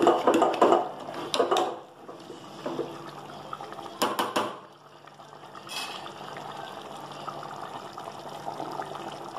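Metal ladle stirring thick chicken gravy in a metal pot, the gravy sloshing, with a few sharp knocks of the ladle against the pot, about a second and a half in and again around four seconds. After that the gravy boils steadily at a lower level with a soft bubbling.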